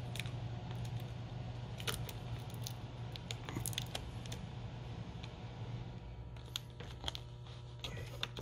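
Small scattered clicks and crinkles of fingers peeling adhesive tape off the video cable connector on the back of a laptop LCD panel and prying the connector loose with a pick tool, over a steady low hum.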